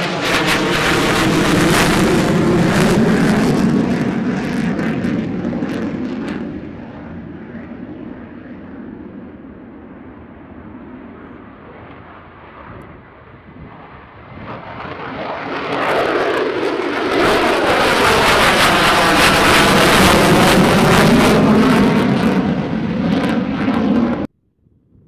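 Lockheed Martin F-35A Lightning II single-engine jet at full take-off power, loud at first and fading as it climbs away. About halfway through, jet noise swells up loud again as an F-35 passes, with a sweeping, whooshing quality. It cuts off abruptly near the end.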